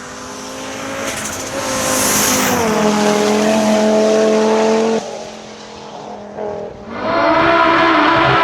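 Audi quattro rally car's turbocharged five-cylinder engine approaching under hard acceleration, then lifting off sharply about five seconds in. After a short quieter stretch with a couple of pops, it goes back on full throttle about seven seconds in.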